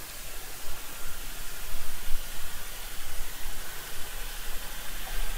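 Steady hiss with a low, uneven rumble underneath: the background noise of a voice-over recording while a render runs.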